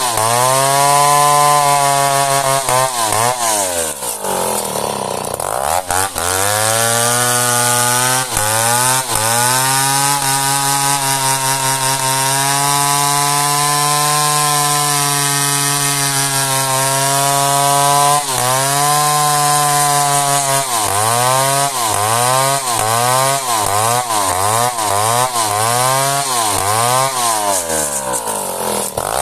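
Two-stroke chainsaw cutting dense merbau hardwood, its engine speed sagging and recovering under load. The pitch drops low and comes back up about four to six seconds in, holds steady through the middle, then wavers rapidly up and down near the end.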